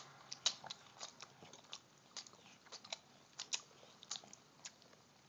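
A small child's faint mouth sounds while eating a fudgesicle: irregular short smacks and clicks of lips and tongue, about a dozen over a few seconds.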